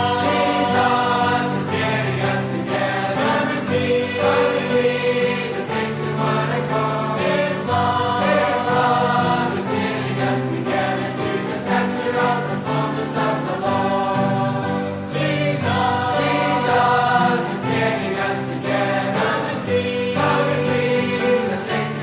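A choir singing a Christian hymn, with many voices together moving from note to note at an even pace.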